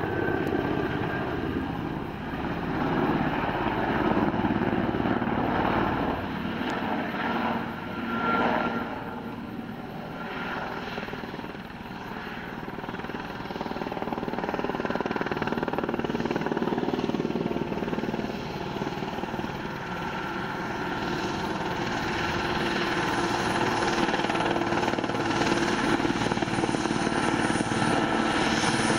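French military helicopter flying past, a continuous beat of rotor and turbine sound. It eases off for a few seconds a little before the middle, then grows steadily louder toward the end as the helicopter comes close.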